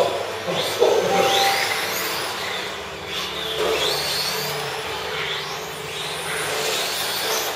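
Electric RC F1 cars running on a carpet track, their motors whining in repeated rising sweeps as they accelerate.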